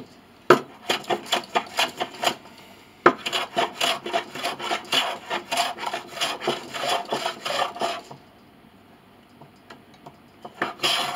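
Hand plane shaving the wood of a piano pinblock in quick, short rasping strokes, about three a second, with a sharp knock at about half a second and again at three seconds in. The strokes stop at about eight seconds and start again near the end.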